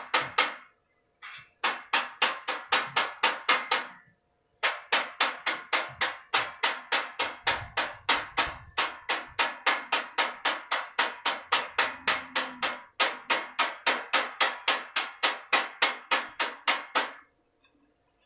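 Rapid, regular sharp strikes, about four a second, in runs of several seconds broken by short pauses, with a faint steady hum underneath.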